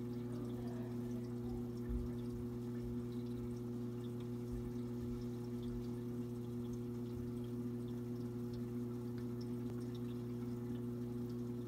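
Aquarium sump pump humming steadily in a few even tones, with faint trickling and dripping water.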